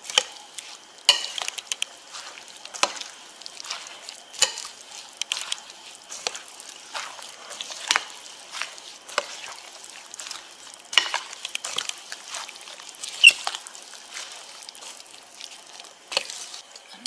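A metal spoon stirring a thick, wet batter of whole mung beans and diced jicama in a glass mixing bowl: a wet, squelchy churning with irregular scrapes and clicks of the spoon against the glass, one especially sharp click about 13 seconds in.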